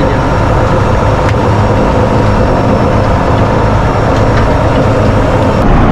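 A fishing boat's engine running steadily: a loud, even, low drone.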